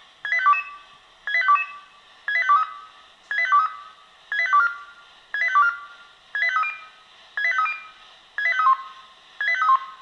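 Swissphone Quattro 96 pager sounding its alert tone for a test alarm: a short run of quick electronic beeps at different pitches, repeating about once a second.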